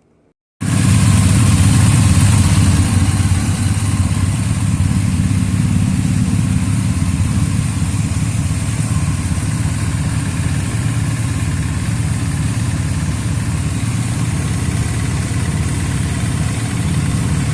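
An engine running steadily at an even speed. It cuts in suddenly from silence about half a second in.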